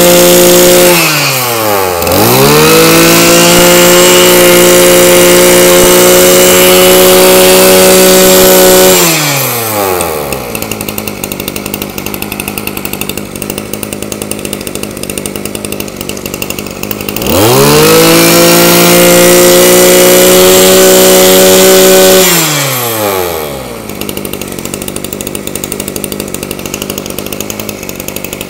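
Two-stroke engine of a Kioritz (Echo) 26 brush cutter, 34 mm bore, revved hard and let back to idle. It dips briefly about a second in, is held at high revs until about 9 s, drops to a rattling idle, is revved again for about five seconds, then falls back to idle. The throttle picks up crisply with no hesitation, a sign that it is not running short of fuel.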